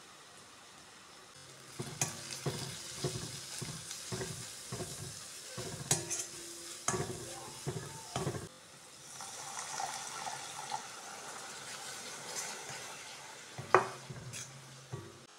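A steel ladle scrapes and clatters while stirring onion-tomato masala in a black kadai, giving a quick run of clicks and scrapes. This gives way to a steady frying sizzle after liquid is poured in. Near the end there is one loud sharp knock of the ladle against the pan.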